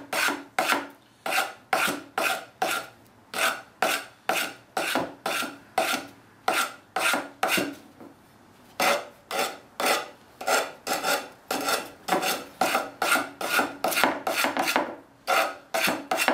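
Sanding block rubbed in short back-and-forth strokes across the angle-cut end of a copper pipe, smoothing and deburring the cut edges. The rasping strokes come about two a second, with a pause of about a second near the middle.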